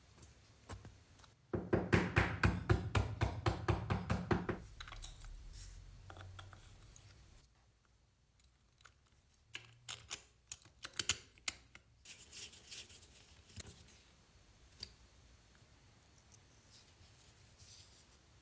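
Vintage 1938 razor blade sharpener being worked by hand: a fast run of sharp metallic clicks for about three seconds, then scattered single clicks and light scraping as it is handled.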